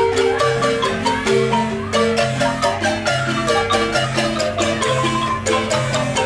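Large wooden Guatemalan marimba played with mallets by several players: a lively tune of quickly struck notes over a steady, regularly repeating bass line.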